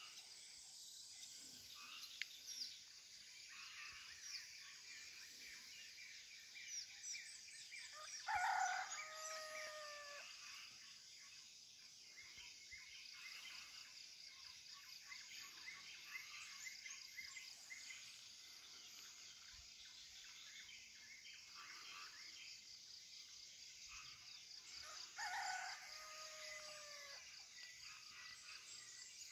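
A rooster crows twice, once about eight seconds in and again near the end, each a long call falling in pitch at the close. Underneath runs a steady high-pitched chorus of insects with scattered small-bird chirps.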